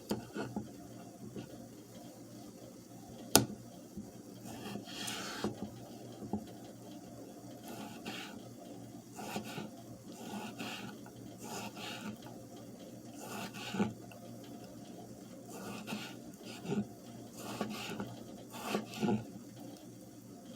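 Kitchen food preparation: irregular scraping and rubbing strokes of a utensil working food, with one sharp click about three seconds in.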